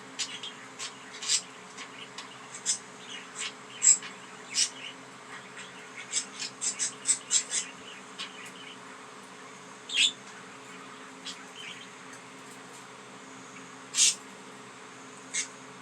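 Pet budgerigars chirping: short, sharp, high chirps scattered throughout, with a quick run of them about six to eight seconds in and a few louder single chirps near ten and fourteen seconds. A faint steady hum runs underneath.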